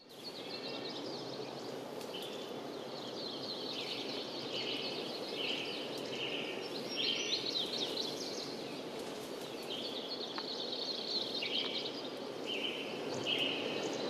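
Outdoor nature ambience: many short, high chirps repeating over a steady, even hiss.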